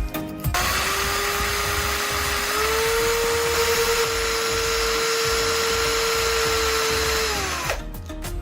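Electric drill running steadily with a hiss of grinding over it, as a graphite rod spinning in its chuck is filed down. It starts about half a second in, rises slightly in pitch partway through, and winds down and stops near the end.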